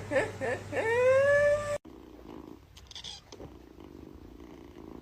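A long drawn-out pitched call about a second in, then, after an abrupt cut, a domestic cat purring softly and steadily.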